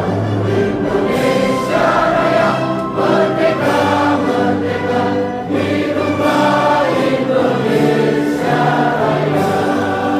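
Music with a choir singing long, held chords.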